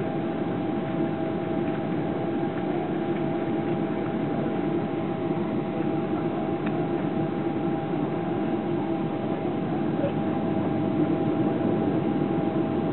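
Steady cabin noise inside a Boeing 777-200LR on final approach: rushing airflow and the drone of its GE90 turbofan engines, with a couple of faint steady hum tones. It grows a little louder near the end.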